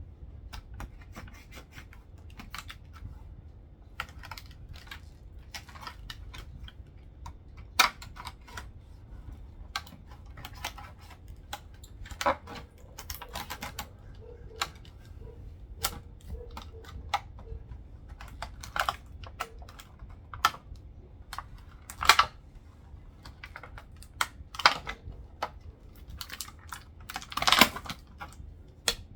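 Hard plastic packaging being handled and pried open by hand: irregular clicks, crackles and snaps, with a few much louder snaps among them.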